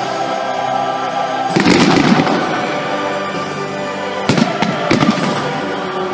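Fireworks display set to music: a dense spell of crackling bursts about a second and a half in, then a few sharp bangs around four seconds in, with the music playing throughout.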